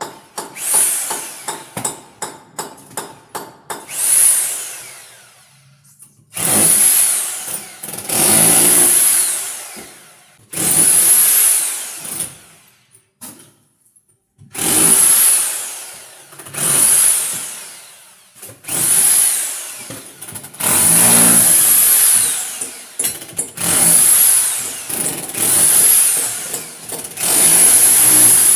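Rotary hammer drill drilling into concrete in repeated runs of one to two seconds, its motor whine rising as the trigger is pulled and falling away as it is released. There are short, quick trigger blips in the first few seconds.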